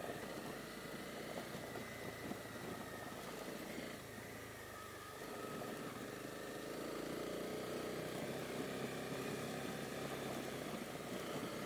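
Honda CB250R's single-cylinder engine running steadily as the motorcycle rides along a rough gravel track.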